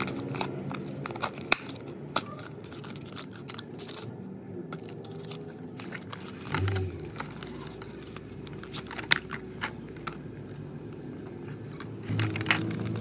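Cardboard blind box being handled and opened by hand: scattered clicks, scrapes and crinkles of thin card flaps being folded open and the inner box being drawn out.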